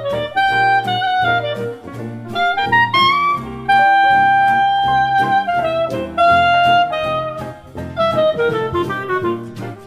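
Background instrumental music: a melody with long held notes over a bass line and light regular percussion.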